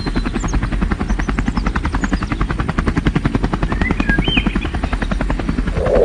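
Helicopter rotor beating fast and steadily, with birds chirping faintly in the background.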